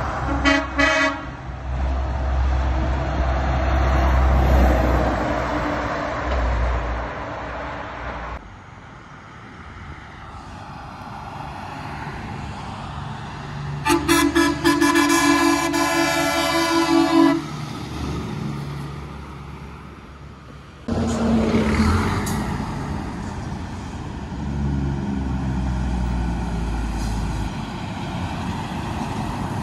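Heavy trucks and traffic passing, with steady engine and tyre noise. Midway a truck air horn sounds, a loud blast of about three seconds, and a brief horn toot comes about half a second in.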